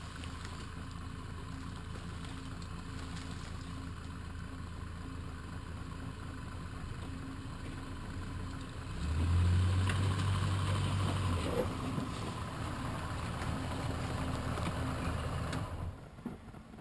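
Dodge Ram 2500's Magnum V10 engine running at low revs while the truck is backed up, rising louder for a couple of seconds about nine seconds in, then dropping away near the end.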